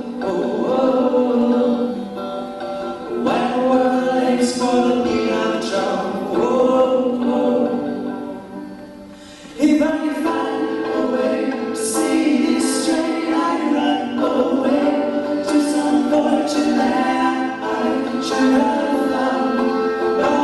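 Choir singing a pop song. The voices die down to a soft passage about seven to nine seconds in, then come back in all at once, full and loud, just before the halfway point.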